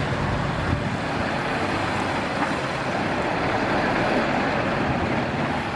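MAN refuse truck passing close on a wet road: its diesel engine running under low, steady bands, with tyres hissing through the surface water.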